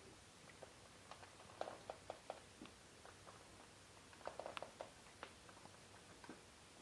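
Faint, scattered light clicks and taps of hands handling the fan's white plastic grills and frame, in two small clusters about one and a half seconds in and again around four and a half seconds in, over near silence.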